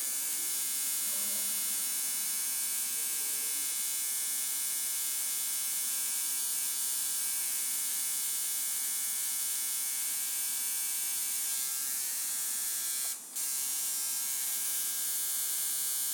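Electric tattoo machine buzzing steadily, a bright, high-pitched electric buzz, with one brief break about 13 seconds in.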